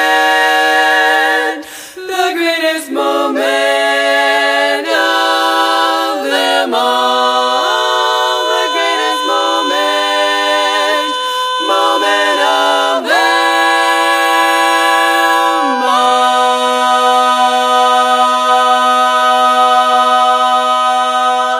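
Women's barbershop quartet singing a cappella in close four-part harmony: a held chord, a run of moving chord changes, then a long sustained final chord that fades out at the end.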